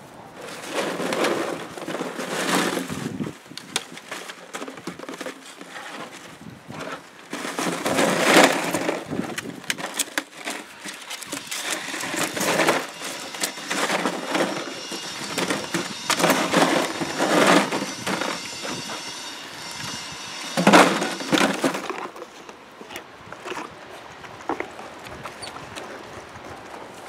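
Dutch shepherd puppies playing with a plastic box and a tarp: irregular bursts of crunching and rustling plastic every few seconds.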